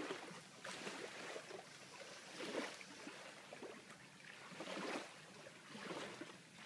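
Faint lapping of lake water against a floating dock, in a few soft swells.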